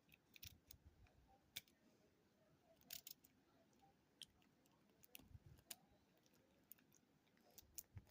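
Faint, scattered metallic clicks and ticks of a comb pick being worked into a Master Lock 150 padlock.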